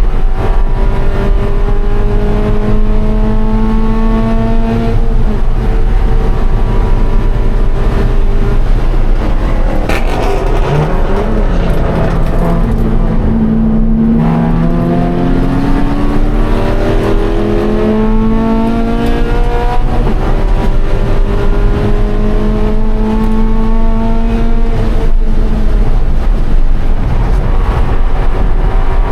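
Scion FR-S race car's engine at full throttle, climbing in pitch through the gears with several upshifts. About ten seconds in it eases off and the pitch falls as the car slows, then it pulls hard again, climbing and shifting up.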